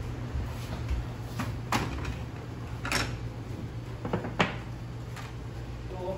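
Small ceramic side-dish bowls set down one by one on a wooden table, each giving a short sharp knock, over a steady low hum.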